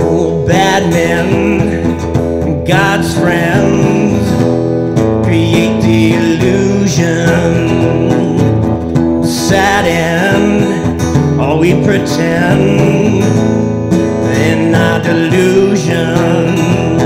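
Acoustic guitar strummed in steady chords, with a man singing over it in several phrases.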